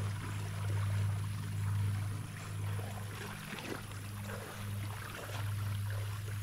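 River water rippling and lapping around a kayak, with a low steady hum underneath that cuts out briefly a few times.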